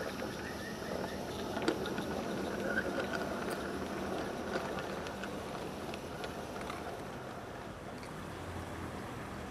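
G-scale model freight wagons rolling past on garden-railway track, with irregular sharp clicks from the wheels on the rail over a steady hiss; the sound swells slightly as the wagons pass and then eases.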